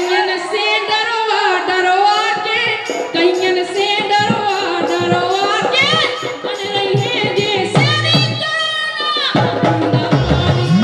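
A male singer sings a Bundeli Rai folk song through a stage PA, with a rhythmic hand-drum accompaniment. Near the end he holds one long high note.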